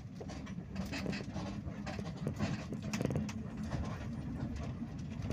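Bus engine running with a steady low drone, heard from inside near the back of the bus, with frequent rattling clicks and knocks from the bus body.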